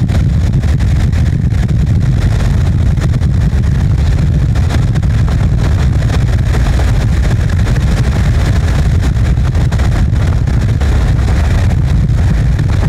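Car driving at speed: a steady low rumble of road and wind noise.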